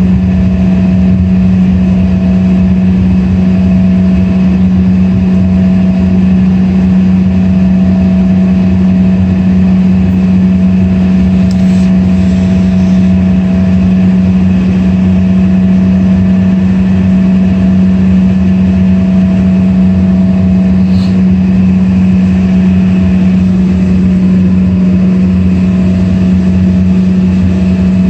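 Embraer ERJ regional jet's Rolls-Royce AE 3007 turbofans running steadily at taxi power, heard from inside the passenger cabin: an even, loud low hum with a fainter higher tone and an airy hiss, with no spool-up.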